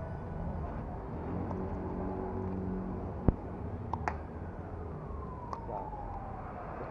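American Staffordshire terrier chewing a stick close to the microphone, giving a few sharp cracks, the loudest about three seconds in, over a steady low hum.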